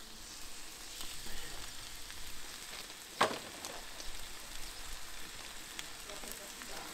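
Two sirloin steaks sizzling as they sear in a hot frying pan on a bed of sea salt flakes, with a steady crackling hiss that gets louder about a second in. A single sharp crack comes a little after three seconds.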